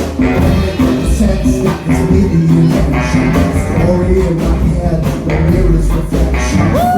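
Live low-rock band playing: baritone saxophone lines over a heavy bass-and-drums rhythm section. Near the end one held note swoops up and falls away.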